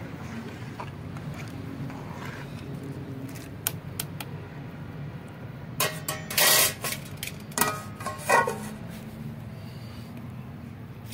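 Metal cooking utensils clinking and knocking (ladle, aluminium pot and metal lids at a wood-fired pot of boiling rice): a couple of light clicks a little before the middle, then a louder cluster of ringing knocks from about six to eight and a half seconds in, over a steady low background rumble.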